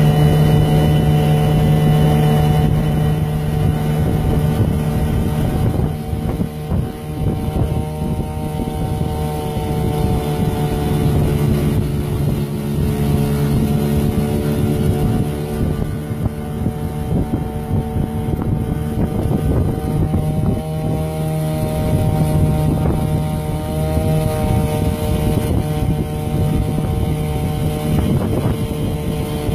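A small boat's outboard motor running steadily under way. Its pitch rises and falls only slightly.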